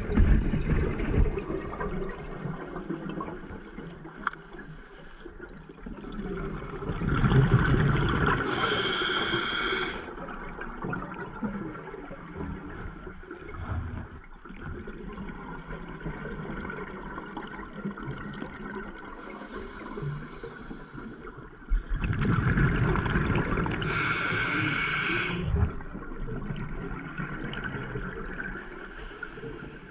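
Scuba diver's regulator breathing heard underwater, with a steady low watery rumble. There are two long bursts of exhaled bubbles, about seven and twenty-two seconds in.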